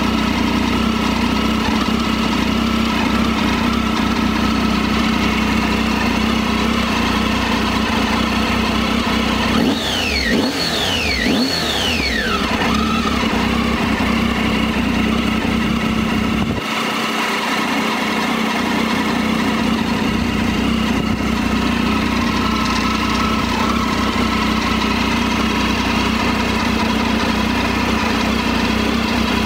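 Triumph Tiger 800 XRT's 800 cc three-cylinder engine idling steadily. Three quick falling whistle-like chirps come over it about ten to twelve seconds in.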